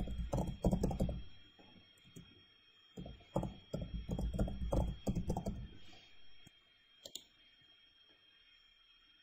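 Typing on a computer keyboard in two quick runs of keystrokes, the second beginning about three seconds in, followed by a single sharp click a couple of seconds later.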